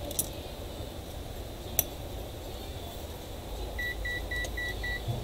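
Five short, high electronic beeps in quick succession, about four a second, near the end, after a sharp click a couple of seconds in, over a steady low hum.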